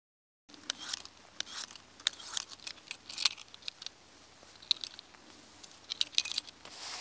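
Large Victorinox knife blade being stroked across a water-wetted Opinel natural whetstone: a series of short gritty metal-on-stone scrapes in irregular clusters, starting about half a second in.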